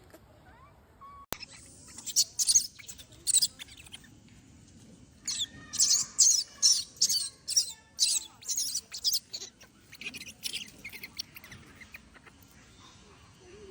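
Young macaque screaming shrilly in short repeated cries: a cluster about two seconds in, then a run of about two cries a second from about five to nine seconds in, trailing off into softer calls. These are the protest screams of a youngster being weaned.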